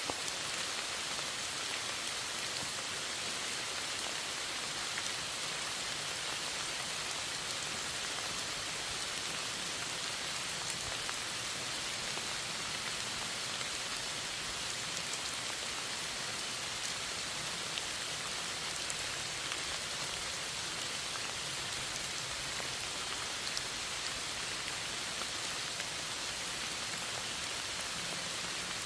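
Steady rain falling on a surface, an even hiss with scattered small drop taps.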